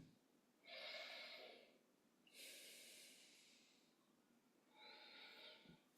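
Faint breathing through the nose during a held yoga pose: three soft breaths of about a second each.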